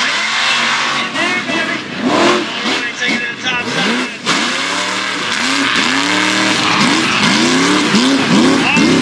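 Mega truck's engine revving hard, its pitch rising and falling about twice a second as the throttle is worked over the dirt humps.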